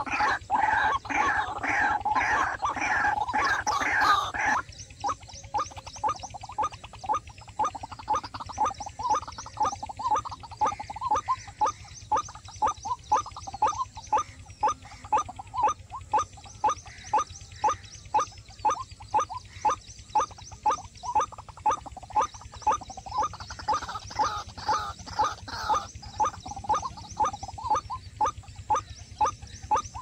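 White-breasted waterhen calls: loud, dense repeated notes for about the first four seconds, then a steady, monotonous run of single notes at about two a second.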